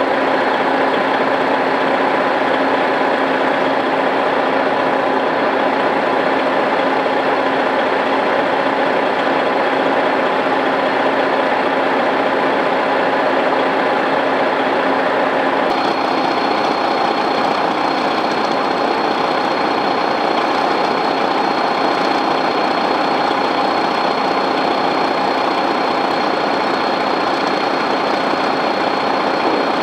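Heavy diesel truck engines running steadily at idle, a continuous drone with a steady hum. About halfway through the sound shifts slightly and a thin, high, steady whine joins.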